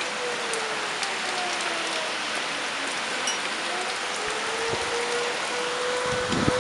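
Steady hurricane rain hissing on surfaces, with a thin tone that wavers and slides in pitch. Low rumbles, typical of wind gusts on the microphone, come in toward the end.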